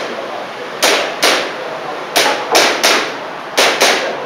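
Airsoft pistol shots fired in quick strings: a pair, then three, then another pair, seven sharp cracks in all.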